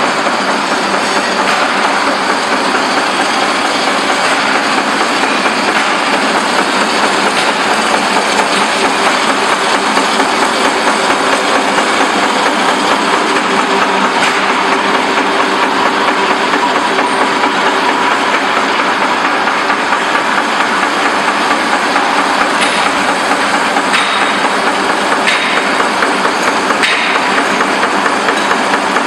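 Continuous-form printing machine for blank 4-ply forms running steadily, a loud, even mechanical noise with a few faint clicks near the end.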